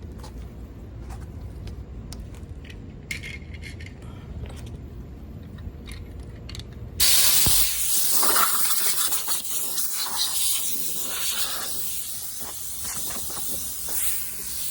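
A low, steady rumble, then about seven seconds in a sudden loud hiss of compressed air that carries on, wavering, until near the end.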